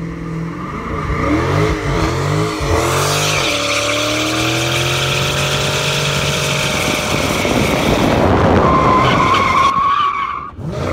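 2018 Dodge Challenger Scat Pack's 392 HEMI V8 revving during a line-lock burnout, the rear tyres spinning and squealing on the pavement. The engine blips up and down for the first few seconds, then holds high revs, with a sharp tyre squeal near the end before the sound drops off.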